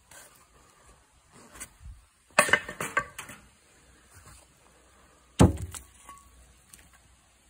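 Knocks and clatter of a cast-iron skillet and a wooden board being handled on a wooden table: a rattling cluster about two and a half seconds in, then one loud sharp knock about five and a half seconds in.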